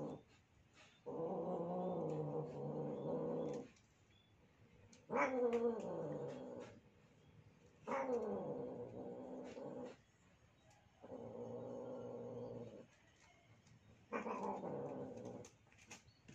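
Domestic cats caterwauling in a mating encounter over a female in heat: five long, drawn-out yowls with short pauses between them, several starting high and sliding down in pitch.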